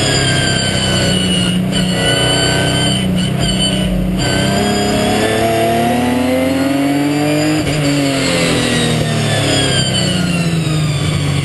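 Ginetta G50 race car's Ford V6 heard from on board. Its pitch climbs steadily under acceleration for several seconds, then falls as the driver lifts off about two-thirds of the way through. A steady hiss of wind and spray from the wet track runs underneath.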